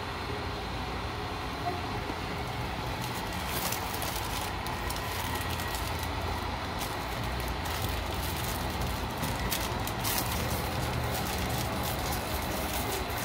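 Plastic wafer wrappers crinkling and crackling in small hands as the packs are torn open, starting a few seconds in, over a steady low rumbling background noise.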